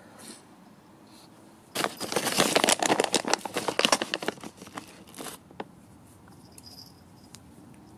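A plastic packet crinkling and rustling in a dense crackly run that starts about two seconds in and stops about three and a half seconds later.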